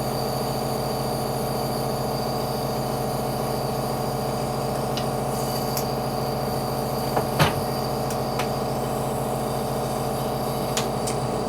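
Nebulizer's electric air compressor running with a steady hum near the end of a treatment. A few small clicks and knocks come over it, the loudest about seven and a half seconds in.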